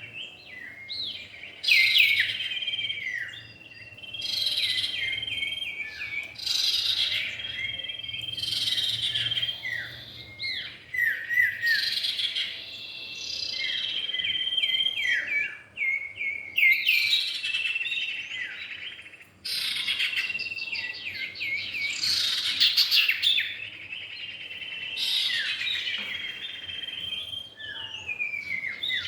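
Common iora (cipow) song, male and female, used as a bird-catching lure: phrases repeat every couple of seconds, quick runs of falling chirps with a held high whistle.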